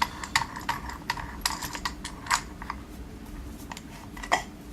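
Light, irregular metal clicks and taps from a padlock and lock-picking tools being handled, with one louder knock near the end.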